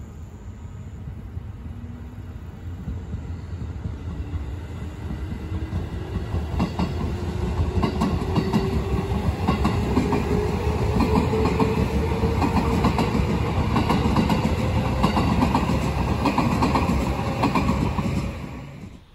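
A JR 211 series electric multiple unit passing, with a hum that rises steadily in pitch. Its wheels clatter over the rail joints, growing louder as it comes alongside, and the sound cuts off suddenly near the end.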